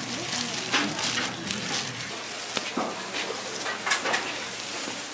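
Gimbap being rolled by hand in thin plastic gloves: the gloves crinkle and the fillings rustle in irregular short crackles as the hands press and roll, over a steady background hiss.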